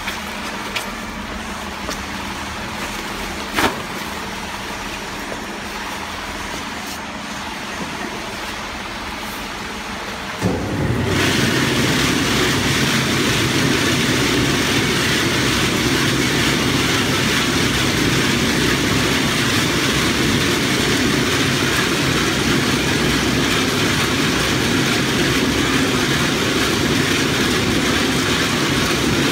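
Roasted peanuts tumbling in a rotating drum roaster and pouring out of its mouth into a sack: a loud, dense, steady rattling rush that starts suddenly about ten seconds in. Before that there is only a quieter steady machine hum and a single knock.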